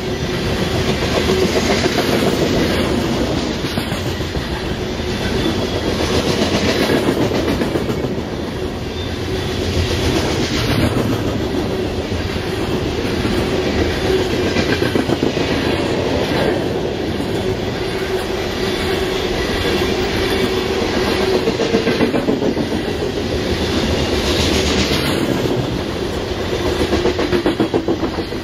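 Coal cars of a unit coal train rolling past on steel wheels: a continuous rumble with a steady hum beneath and fine rapid clicking from the wheels. The loudness rises and falls every few seconds as the cars go by.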